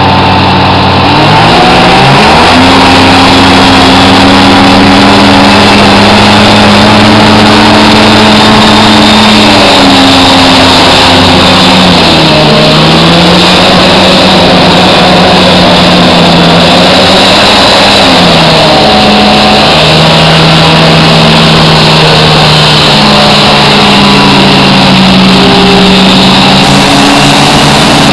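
HoverJet GT hovercraft's engine and ducted fan running loud under changing throttle: the pitch climbs about two seconds in, then dips and recovers around twelve seconds and again around eighteen seconds.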